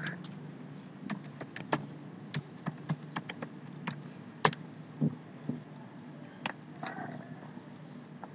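Typing on a computer keyboard: a run of separate key clicks over the first four seconds, one louder sharp click about four and a half seconds in, then a few scattered clicks. A low steady hum runs underneath.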